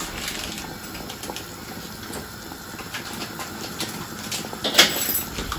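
Large pot of sinigang soup boiling on a gas stove: a steady hiss of bubbling and steam, with a few faint clicks and a short louder noise near the end.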